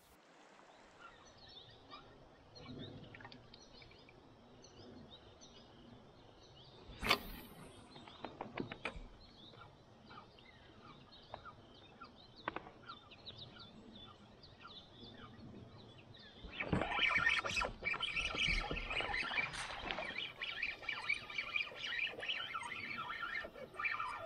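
Small birds chirping over quiet outdoor ambience, with one sharp knock about seven seconds in. The chirping grows louder and busier about two-thirds of the way through.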